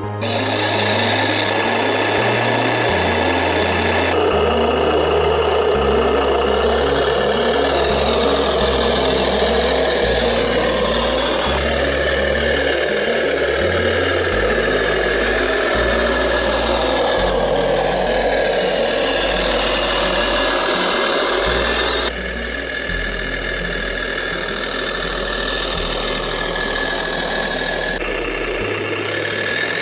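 Electronic background music: a deep bass line stepping to a new note about once a second, under a dense, hissy synth layer with slow sweeps. It drops a little in level about two thirds of the way through.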